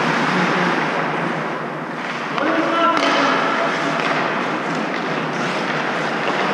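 Ice hockey play in an indoor rink: a steady hiss of skates on the ice and echoing hall noise, with players' voices shouting for a moment about two and a half seconds in and a single sharp knock of stick or puck about three seconds in.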